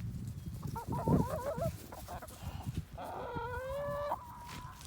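Chickens calling: a short run of wavering squawks about a second in, then one long, level call lasting about a second.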